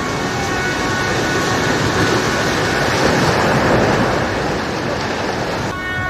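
Vehicle horns blaring in steady held tones. Over them, the rushing, crashing noise of a damaged eight-storey building collapsing under demolition swells up, heaviest about three to four seconds in, then drops away near the end and leaves the horns.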